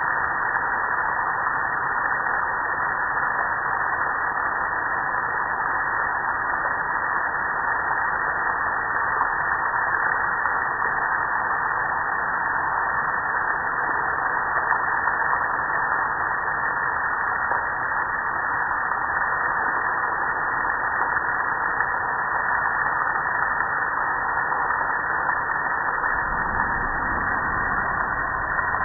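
Garden hose spray nozzle spraying water onto a metal gas grill: a steady hiss of spray and splashing water. A deeper rushing joins in near the end.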